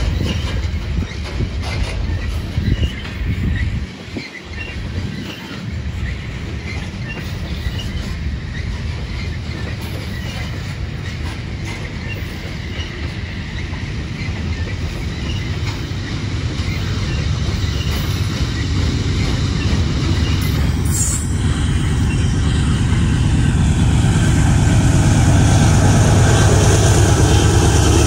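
BNSF coal train's cars rolling past with a steady rumble and wheel clatter on the rails. A low rumble grows louder over the last several seconds.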